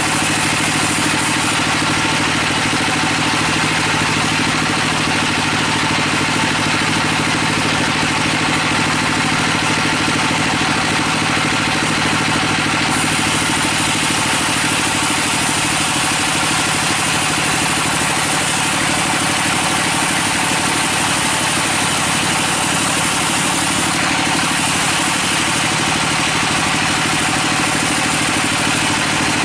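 Sawmill bandsaw running and cutting lengthwise through a teak log: a steady, loud machine hum with a continuous hiss of the blade in the wood.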